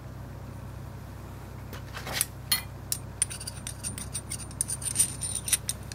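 Light metallic clicks and scrapes of a stainless steel pipe tool being handled, with a pointed metal rod ticking against a hole in its side. The clicks start about two seconds in, and a faint high-pitched metallic ring runs through the middle of them.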